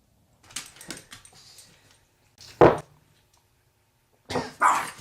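A dog barking in short, rough barks, set off by its owner's fart: one bark about two and a half seconds in and two more near the end.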